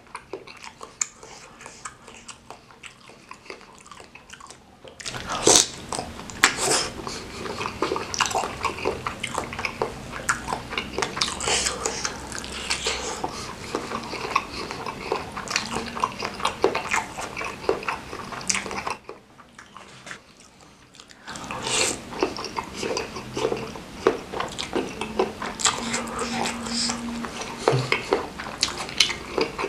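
Close-miked wet chewing and mouth sounds of a person eating chewy bakso aci (tapioca meatballs) in spicy broth: irregular smacks, squelches and small clicks. The sound drops away near the start and again for about two seconds after the middle.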